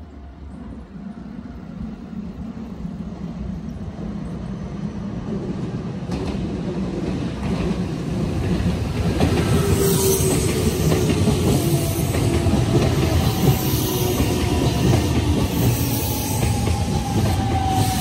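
Nankai 1000 series electric train approaching and passing close by, growing steadily louder. Wheels clatter over the rail joints, with a whine from the train that falls in pitch.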